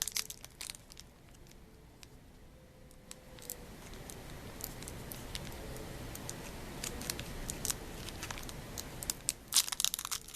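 Foil booster-pack wrappers crinkling and rustling in hand, in a few brief bursts at the start and again near the end. A low, steady rumble builds in the middle.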